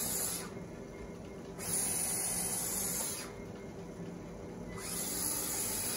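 A treadmill running at about 3 miles an hour, with a steady motor hum under a high hiss that swells and fades three times.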